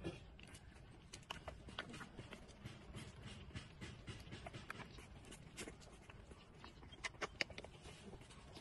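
Puppies suckling at their mother's teats: soft, irregular wet sucking and smacking clicks, with a few sharper clicks about seven seconds in.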